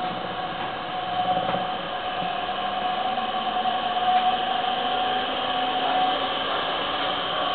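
Three-phase induction motor running on the output of a repaired LG SV040IG-4U variable frequency drive at about 60 Hz: a steady whirring hum topped by several steady whining tones.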